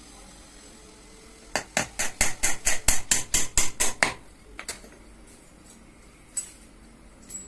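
Hammer driving a nail into a wooden batten. A quick, even run of about fifteen blows comes about a second and a half in and lasts some two and a half seconds, followed by a few single lighter taps.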